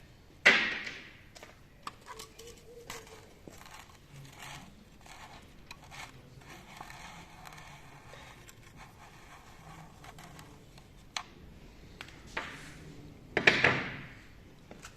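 Scattered clicks and clinks of hand tools and metal engine parts being handled during an engine teardown, with two louder knocks, about half a second in and near the end.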